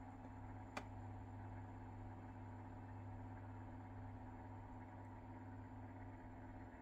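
Faint steady low hum with a thin high whine over it, and one short faint click about a second in.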